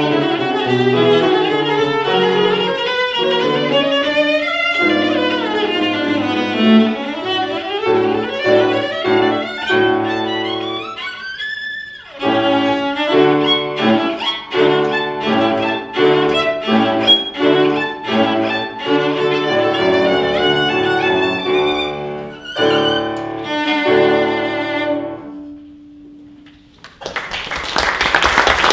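Cello and grand piano playing a classical piece, closing on a long held cello note that fades out. Audience applause breaks out near the end.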